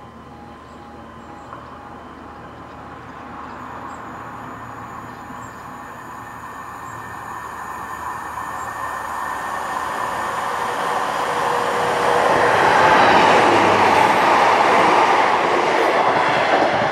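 British Rail Class 150 diesel multiple unit approaching and drawing level, its diesel engine and wheels on the rails growing steadily louder. It is loudest about thirteen seconds in.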